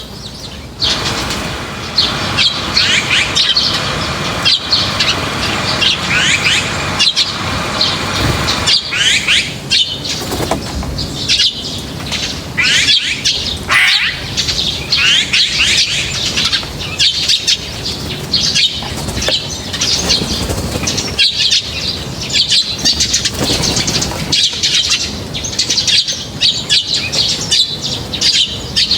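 A flock of small birds chirping and calling busily, with many quick sweeping chirps overlapping, among frequent short clicks.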